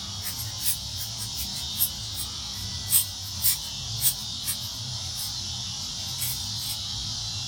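Balisong (butterfly knife) handles clicking and rattling at irregular intervals as the knife is fanned, with a dozen or so sharp clicks. Crickets chirp steadily behind it.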